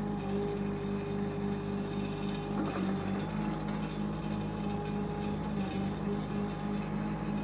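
Shanding 1-ton mini excavator's engine running steadily, with a hydraulic whine that shifts in pitch as the boom and bucket move. A brief clatter comes about three seconds in.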